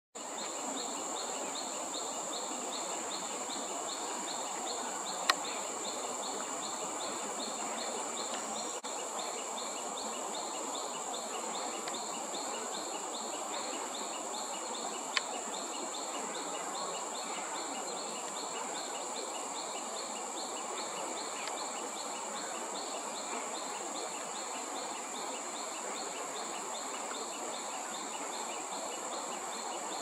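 Forest ambience of insects: a steady high-pitched buzz with a rapid, evenly repeated chirping over a constant background hiss. It is broken by two sharp clicks, about five and fifteen seconds in.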